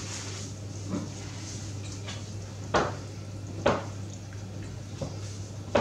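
A spoon stirring thick, sugary tablet mixture in a saucepan, knocking sharply against the pan a few times. A steady low hum runs underneath.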